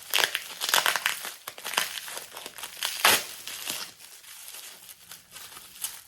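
Packing wrap being crumpled and torn open by hand, in bursts of crinkling and crackling, loudest in the first second and in a sharp rip about three seconds in.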